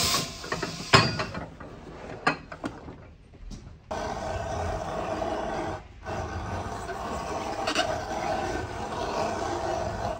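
A shoe sole press lets go with a short burst of air, followed by a loud knock and some handling clunks. From about four seconds in, a motorised trimming machine runs steadily against the new sole's edge, cutting out briefly near six seconds.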